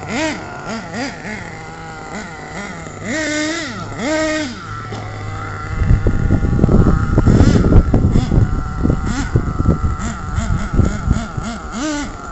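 Radio-controlled car's motor revving in short bursts, its pitch rising and falling with each blip of throttle. About halfway through, a loud, irregular low rumble with knocks on the microphone takes over and becomes the loudest sound, with one more rev near the end.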